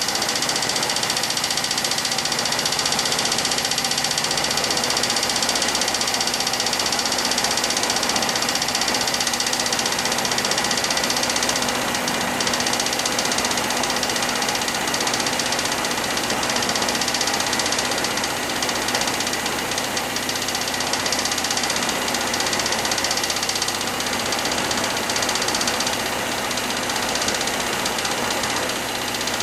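Air-charged alpha-configuration Stirling engine, built from a Chrysler RV2 air-conditioning compressor, running steadily without load, with the hiss of its propane flame burner.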